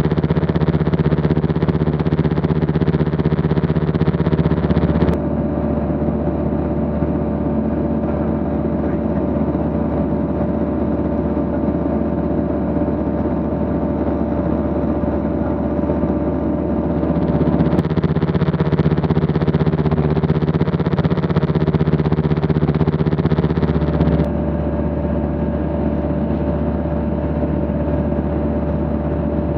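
Single-engine light aircraft's piston engine and propeller running steadily at climb power, a continuous drone of several steady tones. Its timbre changes abruptly about five seconds in, again around eighteen seconds, and once more around twenty-four seconds.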